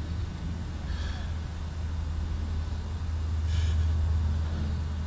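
A woman gasps twice, short and breathy, over a steady low rumble that swells slightly near the end.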